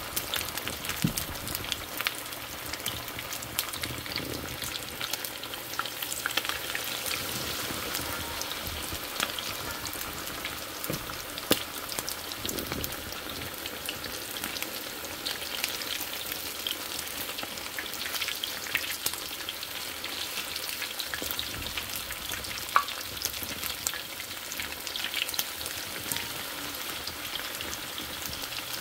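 Chicken wings frying in hot oil: a steady sizzle full of small crackling pops. Two sharper clicks stand out, one near the middle and one about three quarters through.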